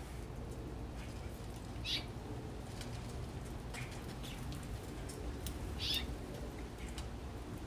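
Small backyard birds chirping in short calls, the clearest two about two and six seconds in, with light wing fluttering over a steady low hum.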